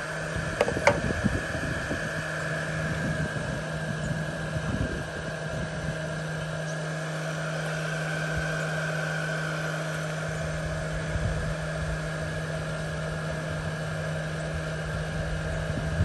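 Small cooling fan in a single-serve coffee maker running with a steady hum, switched on after brewing to cool the unit down. A couple of light clicks about a second in.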